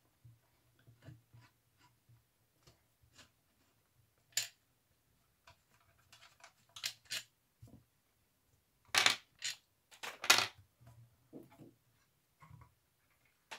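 A screwdriver backing out a loudspeaker woofer's mounting screws with faint ticks, then handling sounds of screws and the woofer being worked loose from the wooden cabinet: sharp scrapes and clicks, loudest twice, about nine and ten seconds in.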